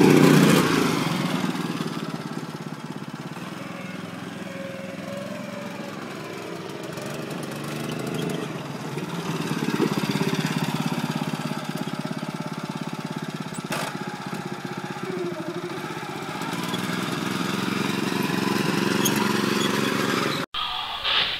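Small engine of a mini car running while driving, its sound swelling and easing as the throttle is worked. The sound cuts off abruptly near the end.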